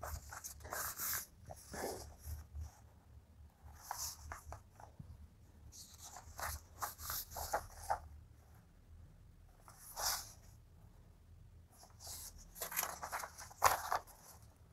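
Paper pages of a printed question booklet rustling and crinkling as they are turned and smoothed by hand, in irregular bursts, over a faint steady low hum.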